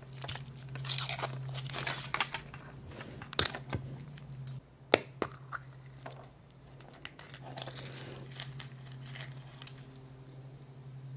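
Foil wrapper of a chocolate surprise egg crinkling and tearing as it is unwrapped by hand, with scattered sharp clicks and snaps.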